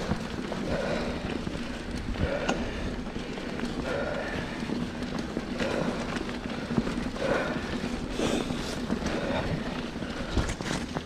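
Mountain bike rolling along a dirt singletrack, heard from a GoPro: steady tyre and trail rumble with scattered clicks and rattles. A soft rhythmic pulse repeats about every second and a half.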